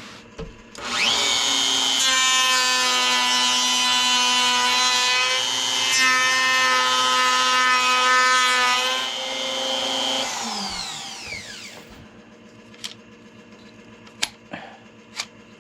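Palm router with a channel-routing bit starts up just under a second in and runs steadily for about nine seconds, taking a shallow pass to cut a wire channel in a guitar body. It is then switched off and spins down with a falling whine, followed by a few light knocks.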